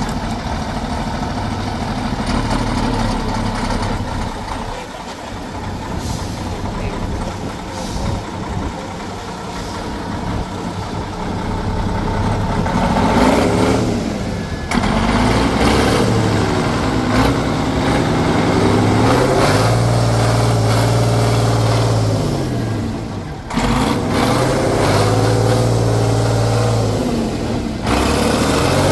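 Praga off-road trial truck's engine working under load through rough ground, steady at first, then revving up and down repeatedly in the second half.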